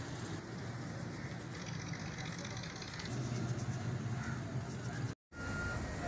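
Steady low hum and noise of a running vehicle engine. After a brief dropout about five seconds in, a short high beep sounds.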